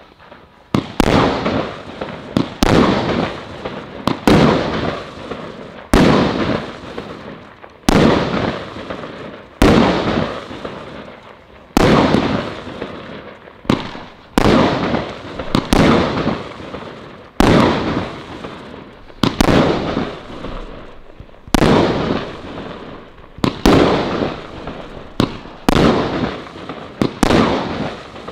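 A 25 mm, 19-shot consumer firework barrage cake firing shot after shot, about one every one and a half seconds. Each shot is a sharp report that trails off over a second or so as the red-tailed comets burst into glittering willows.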